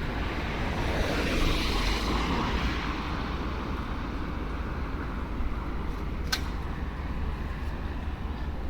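City street traffic noise with a steady low rumble; a vehicle passes, swelling and fading about one to three seconds in. A single sharp click comes about six seconds in.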